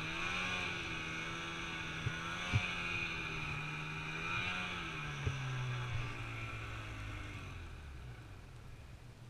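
Snowmobile engine running under throttle through deep powder, its note wavering; about five seconds in the note drops lower as the throttle eases, and the engine fades toward the end as the sled slows. A few short knocks along the way.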